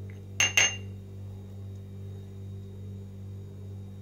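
Two quick clinks with a brief ring, hard kitchenware knocked together as spice containers and spoon are handled, over a steady low hum.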